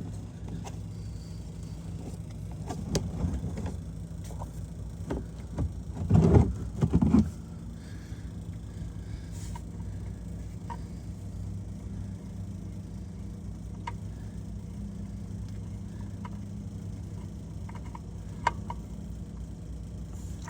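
Knocks and clunks of hands and tools working under a car while an oil filter is taken off, loudest in a short cluster about six seconds in, with scattered light clicks, over a steady low hum.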